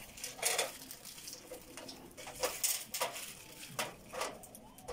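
A few short, irregular clatters and scrapes of hard objects being handled, about six in all, with quieter handling noise between them.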